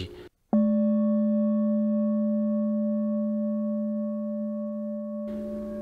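Tibetan singing bowl struck once about half a second in, ringing with a steady low hum and a few higher overtones that fade slowly.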